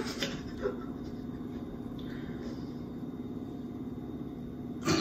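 Quiet room tone with a steady low hum. A couple of faint soft sounds come about half a second in, and a brief louder sound comes right at the end.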